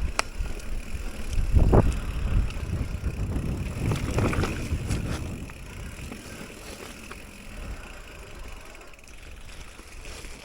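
Mountain bike riding over a wet, muddy dirt trail: rumbling tyre and wind noise with a few sharp rattles. It is loudest in the first half, with two surges about two and four seconds in, then settles to a quieter steady rolling noise.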